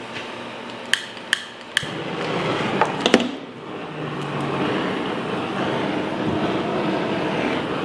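Handheld gas torch being lit with several sharp clicks of its igniter, then burning with a steady hiss of flame as it is played over raw meat to singe off stray hairs.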